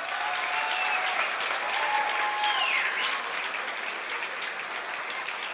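A crowd applauding, with a few voices cheering over the clapping; it starts suddenly and eases off toward the end.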